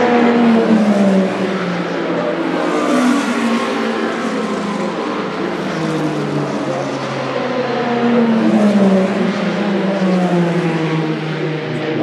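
Endurance race cars passing at speed one after another, each engine note falling in pitch as the car goes by. The two loudest pass-bys come about a second in and around eight to nine seconds in.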